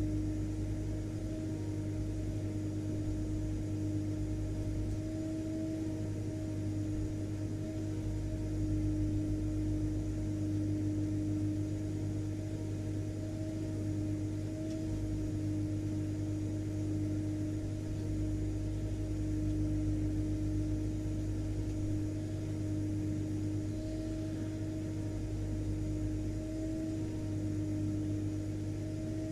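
Vacuum cleaner motor running steadily with a constant hum and an even rushing of air, unchanging throughout.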